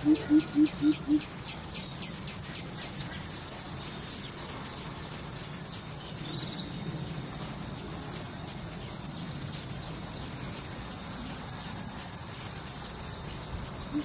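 Insects drone steadily in two high tones, dipping briefly about six and a half seconds in and again near the end. At the very start, a coucal finishes a run of deep, evenly spaced hoots, about four a second.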